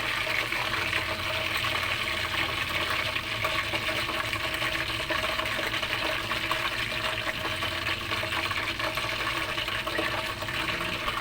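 Deep-frying oil sizzling steadily, a continuous even hiss.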